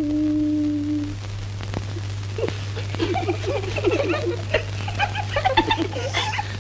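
A child's wordless singing ends on a held note about a second in. Then, from about two and a half seconds on, children start giggling and laughing, growing busier, over a steady low hum and hiss from an old film soundtrack.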